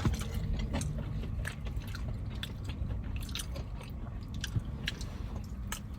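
Close-up chewing and biting on Hooters chicken wings: short wet clicks and smacks scattered irregularly over a steady low rumble.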